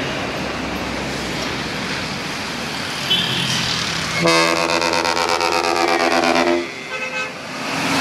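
Road traffic with an engine running, then a bus's ship-style multi-tone air horn (klakson kapal) sounds a chord of several tones for about two seconds with a rapid flutter, followed by a short blip of the horn near the end.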